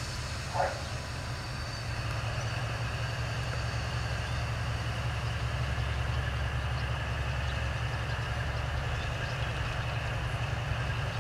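Diesel-hydraulic LDH locomotive running as it approaches at low speed, a steady low engine rumble that grows louder about two seconds in. A short high chirp sounds once about half a second in.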